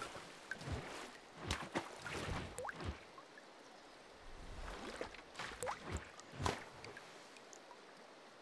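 Water sound effects: scattered drips, splashes and bubbly plops, several of them rising quickly in pitch, coming irregularly every half second to a second.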